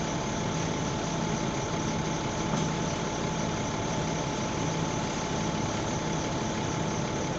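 Bus's diesel engine idling steadily while the bus stands, heard from the back seat inside the bus. It makes a low, even hum with a faint steady whine above it.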